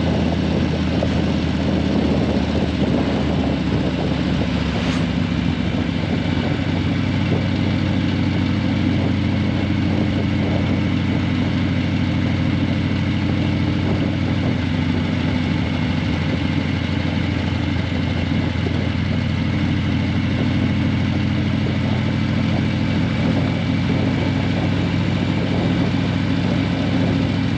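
Harley-Davidson Breakout 117's Milwaukee-Eight 117 V-twin idling steadily through Vance & Hines Eliminator 300 slip-on mufflers, with no revving.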